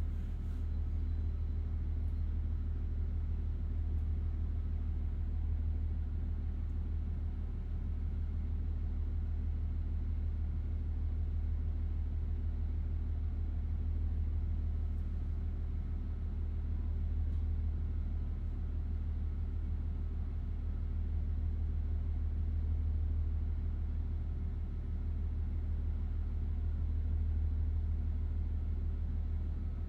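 KiHa 40 diesel railcar's engine idling steadily while the car stands at the platform before departure, heard from inside the passenger cabin as a deep rumble with a faint steady hum above it.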